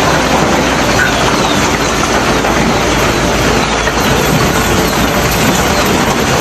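Heavy rain and hail pelting down in a storm: a loud, steady, dense rush of many small impacts.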